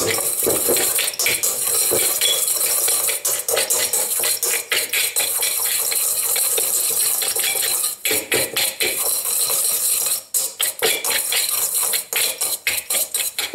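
A wire balloon whisk scraping and clinking rapidly against a stainless steel mixing bowl as flour, fat and sugar are worked into streusel crumbs. About halfway through, the strokes become more spaced out.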